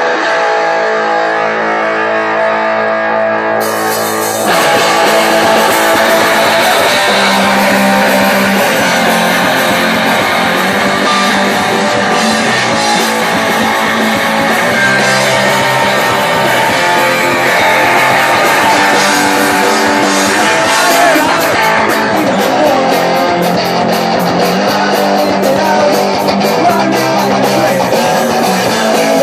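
Hardcore punk band playing live. Held guitar chords ring alone for about the first four seconds, then the full band comes in loud, with a sudden rise in level.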